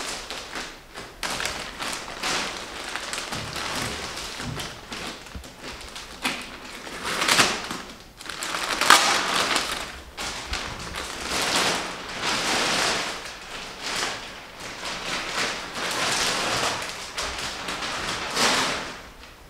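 Thin clear plastic wrapping crinkling and rustling in irregular surges as a chair backrest is pulled out of its bag, loudest about nine seconds in.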